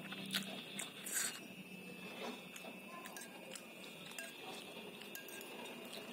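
Noodle soup being eaten: a couple of short slurps in the first second or so as noodles are sucked off a spoon, then chewing with small clicks of a metal spoon and fork against a ceramic bowl.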